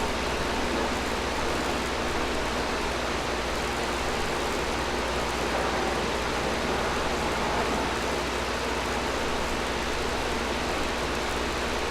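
Air conditioner running steadily: an even rush of blown air over a constant low hum, with a faint steady tone.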